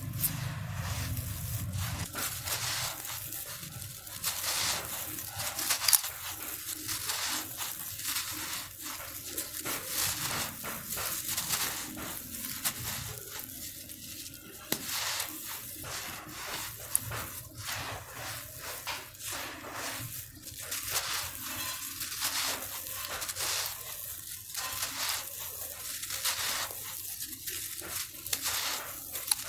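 Hands digging into and crumbling clumps of dry, gravelly dirt, making a continual irregular gritty crunching and rustling as the soil and small stones break up and fall.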